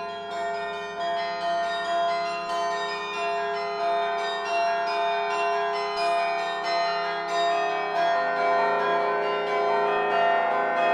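Carillon bells of the Laura Spelman Rockefeller Memorial Carillon played from the baton keyboard, sounding notes and chords in a steady series, each ringing on as the next is struck.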